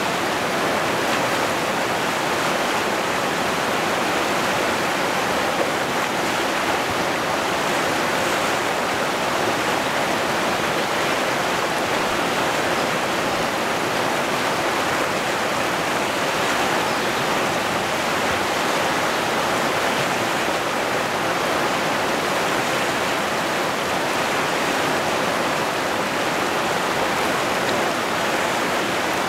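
River rapids running over boulders: a steady, unbroken rush of white water.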